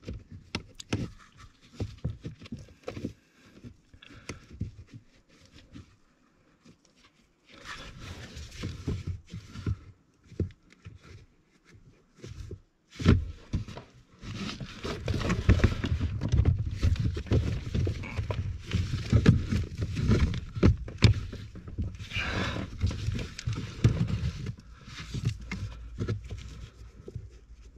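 Hand-tool work on the heater hose clamps: irregular clicks, knocks and rustling, sparse at first and busier and louder from about halfway through.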